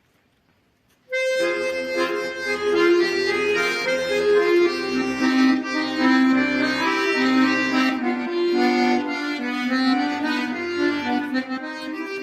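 Instrumental introduction of a song, starting about a second in: a melody over a steady, repeating bass-and-chord accompaniment.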